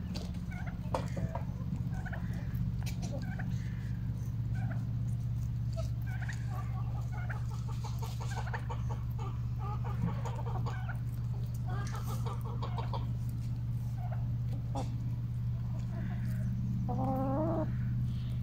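A flock of laying hens clucking softly as they forage, with a louder drawn-out call near the end. A steady low hum runs underneath.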